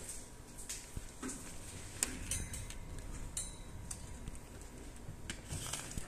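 Scattered light clicks and taps of handling on a workbench, irregular, the sharpest about two seconds in, over a faint steady high tone and low background rumble.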